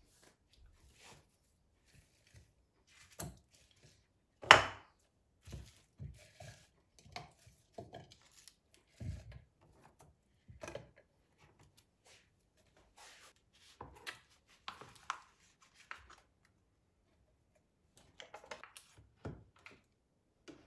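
Scattered kitchen handling sounds during food preparation: short knocks and clatters of utensils, dishes and a cutting board, with one sharper knock about four and a half seconds in.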